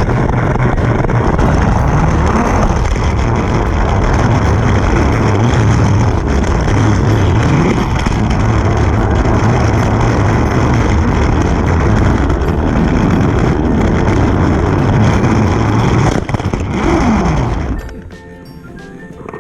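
Battery-powered Trackmaster toy trains running on plastic track: a loud, steady motor whir with wheel clatter and a few rises and falls in pitch. It drops away sharply near the end.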